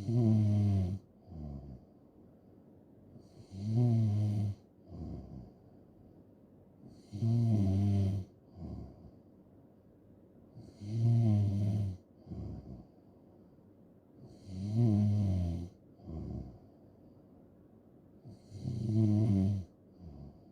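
A person snoring in a steady rhythm, about six loud snores, one every four seconds or so, each followed by a shorter, quieter sound.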